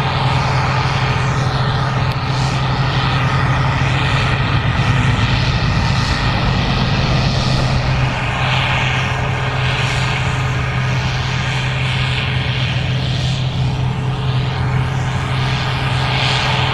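Gleaner R65 combine harvester running steadily while harvesting corn: an even engine drone with a strong, unbroken low tone and machinery noise above it.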